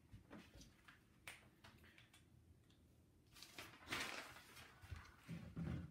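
Near silence, broken by faint handling noises: scattered small clicks and short rustles, with a longer rustle about four seconds in and a low thump or rustle near the end.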